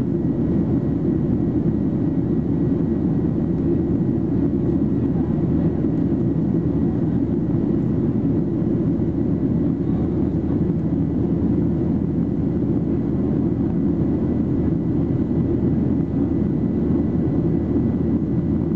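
Steady cabin noise inside a Boeing 737-800 in flight: an even, low, heavy drone of its CFM56 jet engines and airflow, with a faint steady high whine.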